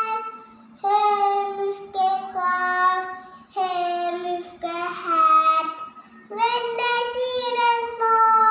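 A young girl singing on her own without accompaniment, in long held notes with short pauses between phrases.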